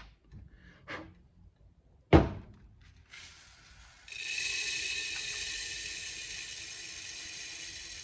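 Silica gel desiccant beads pouring from a plastic jug into a clear plastic filter housing, a steady hiss that starts about three seconds in and grows fuller a second later. Before it, a few light clicks and one sharp knock about two seconds in.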